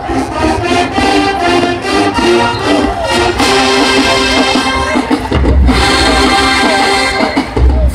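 HBCU marching band playing, its brass section carrying a rhythmic tune. Heavy deep drum hits come in about five and a half seconds in.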